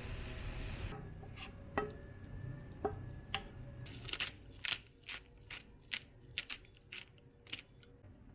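A series of sharp, irregular clicks and taps, about a dozen, starting after a steady background hiss cuts off about a second in.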